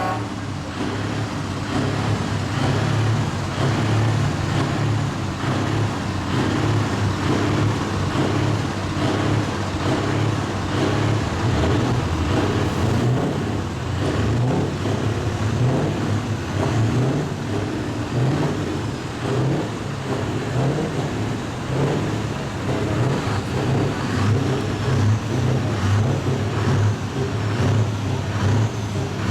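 Scania truck's diesel engine running and revving, a low rumble that rises and falls unevenly throughout.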